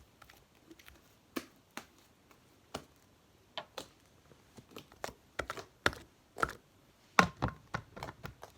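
Hands squeezing and kneading slime, giving irregular sharp clicks and pops, sparse at first and coming thicker and louder in the second half.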